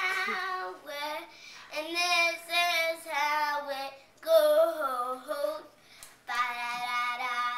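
A young girl singing unaccompanied, in short held phrases with brief breaks between them.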